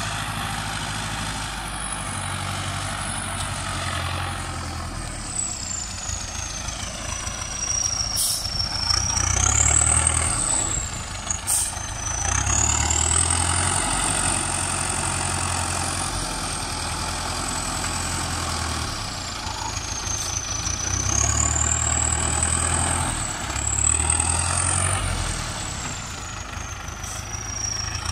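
MTZ 820.4 tractor's turbocharged diesel engine running and revving up and down in several surges while working the front loader, a high whistle rising and falling with the revs. Two short clicks sound about a third of the way in.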